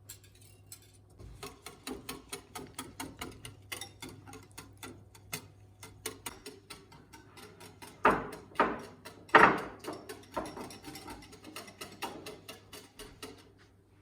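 A utensil beating a runny yogurt, oil and egg topping mixture in a bowl, clicking against the bowl about four or five times a second. A few louder knocks come about eight to nine seconds in.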